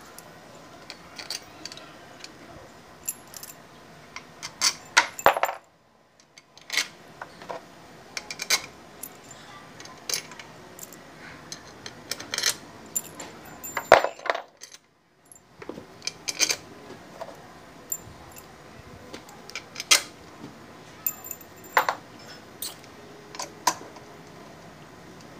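Steel bolts clinking against each other in a hand and tapping into the bolt holes of an NS150 motorcycle engine crankcase as they are set in place: a string of sharp metallic clicks and clinks, broken by two short silent gaps.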